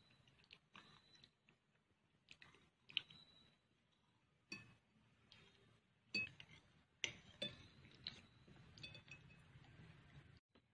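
Metal spoon and fork clinking and scraping against a plate while fried noodles are scooped up, in scattered short, ringing taps, with soft chewing between.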